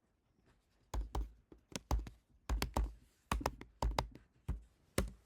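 Typing on a computer keyboard: after a quiet first second, a run of key clicks in quick clusters, each with a dull thud.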